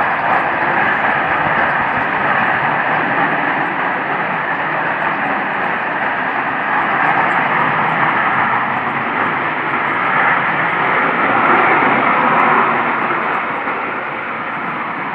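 A loud, steady roar from the sky that sounds like jets flying overhead, with no visible aircraft to account for it. It swells a little about three quarters of the way through, then eases slightly.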